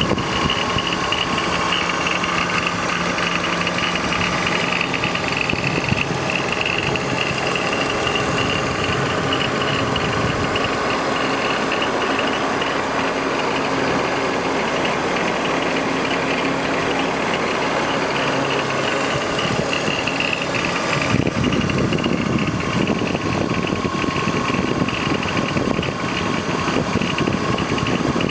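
BMW E46 325i's straight-six engine running with an abnormal rattling, clattering noise and a high-pitched whirring in the engine bay. About three quarters of the way through the high whine fades and the low engine note changes.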